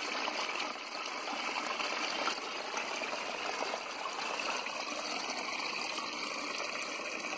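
Small waterfall of rainwater spilling over a rock ledge into a shallow pool: a steady trickling splash.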